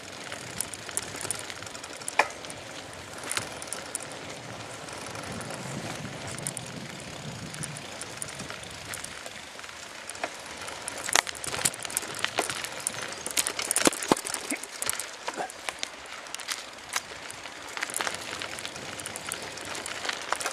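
Bicycle ridden over a rough dirt-and-grass towpath: a steady rolling noise with frequent sharp rattles and knocks as the bike goes over bumps, busiest a little past halfway.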